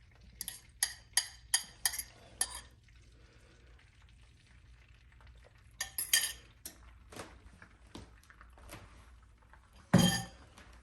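A fork clinking against a bowl of beaten goose egg: a quick run of clinks early, a few more later, and one louder knock near the end.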